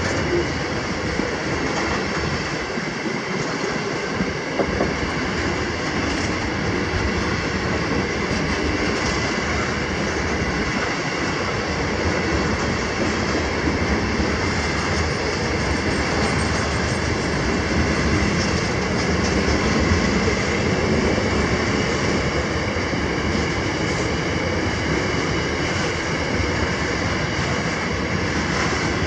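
Loaded grain hopper wagons of a long freight train rolling steadily past, an unbroken noise of steel wheels running on the rails.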